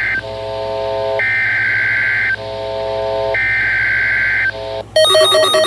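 Emergency alert SAME data header: harsh digital bursts about a second long, repeated three times, alternating with a steady chord of lower electronic tones. Near the end a different, rapidly pulsing electronic alert tone cuts in, announcing the broadcast.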